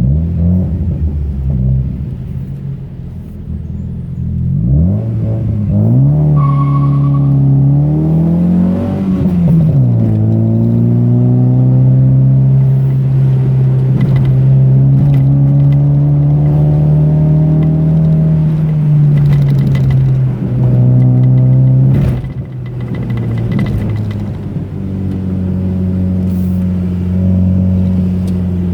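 Car engine pulling through the gears on a winding road: the pitch climbs, drops at a gear change, holds steady while cruising, then falls and picks up again. A few knocks and rattles from bumps in the road.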